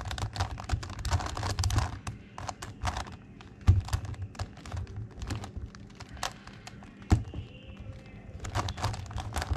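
Plastic clicking and clacking of a megaminx puzzle being turned face by face in the hands, in quick runs of clicks with a couple of sharper knocks.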